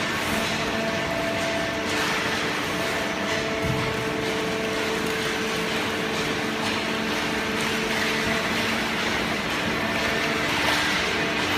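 Hydraulic cardboard baler running: a steady machine hum from its motor and pump, with several held tones that come and go over a noisy rush.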